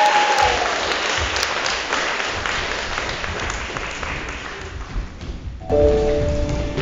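Applause that fades over about five seconds, with the tail of a held, falling shout dying away in the first half second. Near the end, recorded music starts up.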